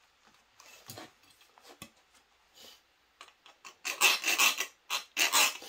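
Rat-tail file rasping across the edge of a cut sheet-steel rose petal, smoothing and deburring it. After a few seconds of faint handling sounds, a run of quick back-and-forth filing strokes starts about four seconds in, with a short break near the end.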